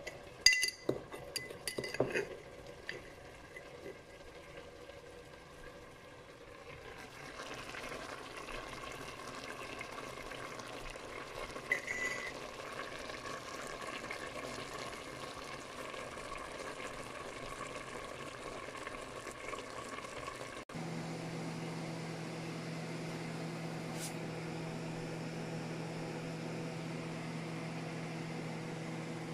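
A metal spoon clinking and scraping in a glass jar of brown sugar for the first couple of seconds, then a pot of chicken in sauce simmering with a steady hiss. About two-thirds of the way through, the sound cuts to a steady low hum.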